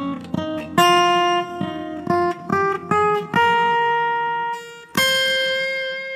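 Background music: an acoustic guitar picking a slow melody of single notes, each ringing and fading, with the notes held longer in the second half.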